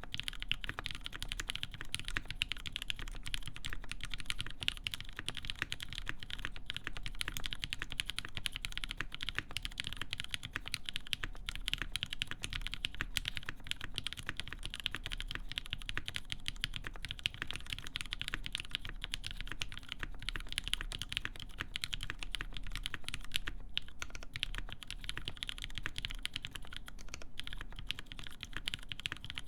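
Continuous fast typing on a mechanical keyboard with lubed linear Cherry MX Black switches in a full aluminium plate and GMK keycaps: a dense, steady stream of keystroke clacks with no pauses.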